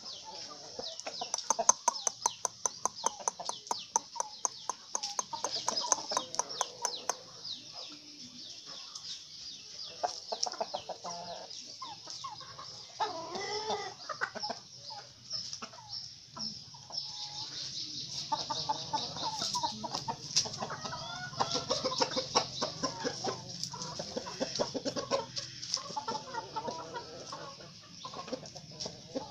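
A flock of free-range village chickens clucking and calling on and off, with the calls thickest in the second half.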